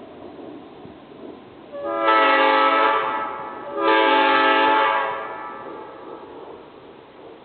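Homemade PVC five-chime copy of a Nathan Airchime M5 air horn sounding two blasts of about a second each, roughly two seconds apart, each a chord of several steady notes that trails off afterwards. The chimes are tuned by ear and not yet exactly on note.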